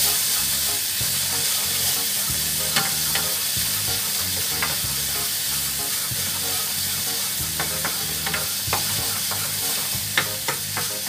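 Peeled shrimp and ground chili spice paste sizzling in hot oil in a non-stick pan, stir-fried until the shrimp change colour. A spatula stirs and scrapes through it, with scattered sharp taps against the pan.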